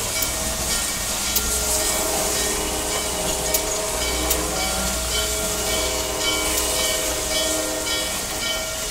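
Norfolk and Western 611, a J-class 4-8-4 steam locomotive, hissing steam as it moves slowly past. A few sharp clicks and some steady notes that come and go sound over the hiss.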